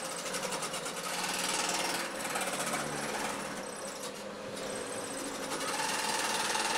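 Table-mounted jigsaw running, its blade stroking rapidly up and down as it cuts through a wood panel fed by hand. The buzzing rattle swells and dips with the feed and is loudest near the end.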